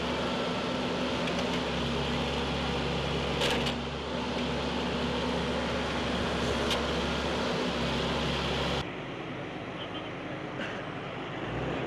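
Diesel engine of a backhoe loader running steadily at idle, a low even hum with a few sharp clicks. About nine seconds in the engine sound cuts off, leaving a quieter outdoor background.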